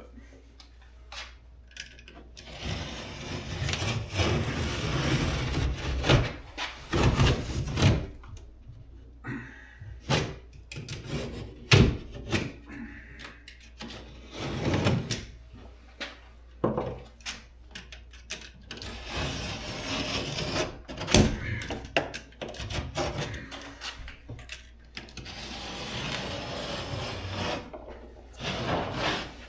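Utility knife scoring old drywall around a door frame: repeated rasping scrapes in uneven strokes, broken by a few sharp knocks.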